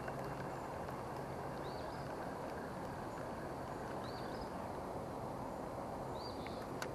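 A small bird giving a short chirp three times, about two seconds apart, over a steady outdoor hiss. A sharp click sounds near the end.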